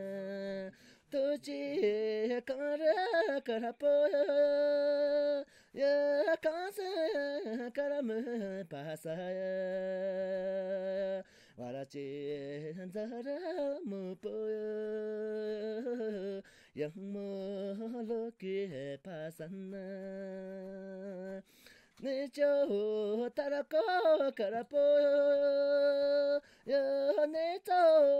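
One voice singing unaccompanied, a slow song of long held notes that slide up and down between pitches, in phrases with short breaks between them.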